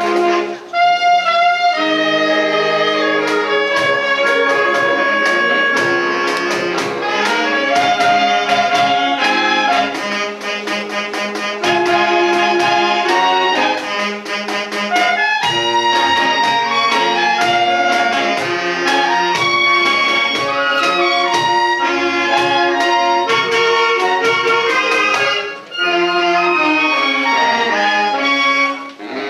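Saxophone ensemble playing a piece in harmony, several saxophones holding chords and moving lines together. The music briefly drops out about a second in and again near the end.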